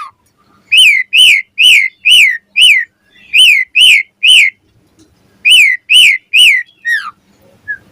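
Pied starling (jalak suren) singing: loud, clear whistled notes, each rising briefly and then falling, repeated in three quick runs of five, three and three, with a few lower falling notes near the end.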